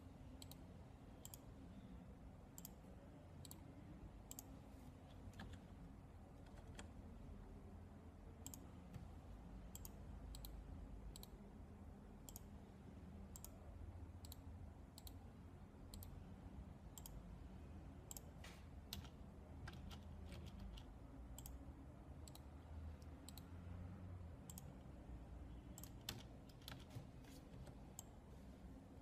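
Computer mouse button clicking at an irregular pace, roughly a click every half second to a second, with quicker runs of clicks about two-thirds of the way through and near the end, each click placing a point while tracing an outline in embroidery digitizing software. A faint low hum lies underneath.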